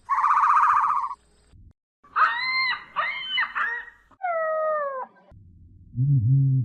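A string of animal calls: a buzzy, pulsing call about a second long, then several short pitched cries, then a call that falls in pitch, and a low call near the end.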